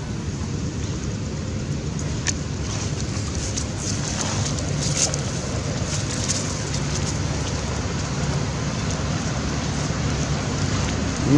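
Steady outdoor background noise, even and hiss-like, with a few faint crackles.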